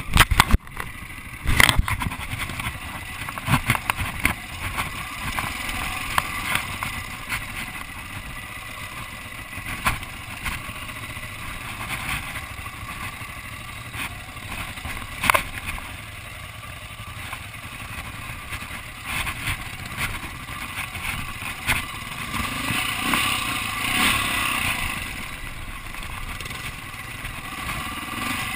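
Dirt bike engine running at low, uneven speed on a rocky trail, with frequent sharp knocks and clatter as the bike jolts over rocks.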